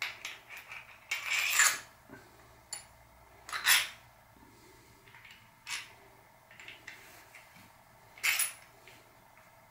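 Small metal bike parts and tools being handled on a workbench: irregular clinks, light knocks and a short scrape as bottom bracket bearings and cups are picked up and set down.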